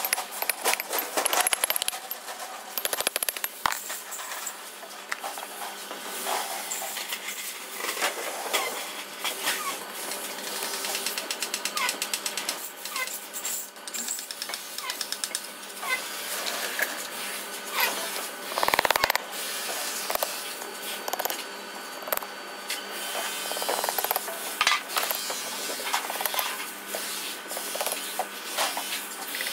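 Hammer blows on a steel punch driving parts into metal bearing housings, with sharp metal clinks and knocks of parts handled on the bench. The strikes are irregular, some in quick runs of taps.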